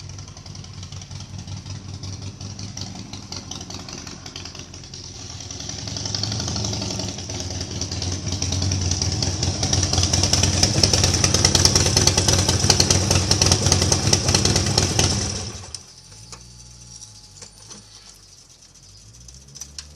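2008 Harley-Davidson Nightster 1200's V-twin engine running, growing louder from about five seconds in, then cut off suddenly about fifteen seconds in.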